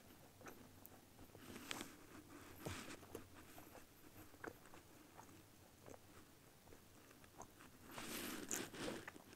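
Someone chewing and crunching matzah close to the microphone: faint scattered crunches, with a louder stretch of crunching near the end.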